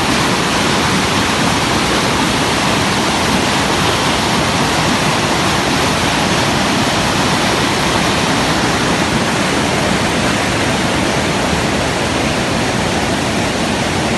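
Flash-flood water rushing past in a loud, steady torrent of churning water.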